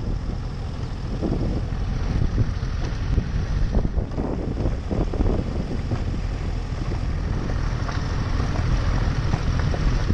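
On-board sound of a motorcycle rolling along at low speed: engine running under a steady low rumble of wind buffeting the bike-mounted microphone.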